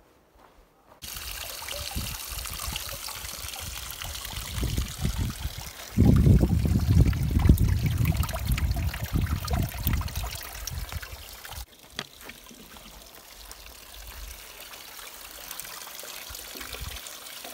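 Water pouring from a pipe into a metal trough, splashing steadily. It is louder and heavier for several seconds in the middle, then quieter near the end, when a plastic bottle is dipped into the trough to fill it.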